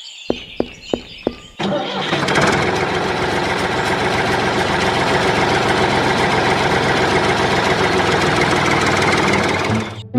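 A few sharp clicks, then an engine starts at about a second and a half in and runs steadily at a high level before cutting off suddenly near the end.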